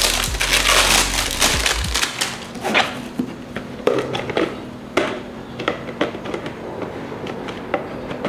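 Plastic crinkling and rustling for about the first two seconds, then scattered sharp plastic clicks and knocks as a three-layer plastic sprouts maker is opened and its layers are pulled apart.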